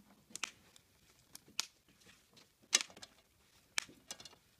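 Wire coat hanger scraping and clicking against wooden deck boards as it is worked down through a gap between them: several short, sharp, separate scrapes, the loudest a little past halfway through.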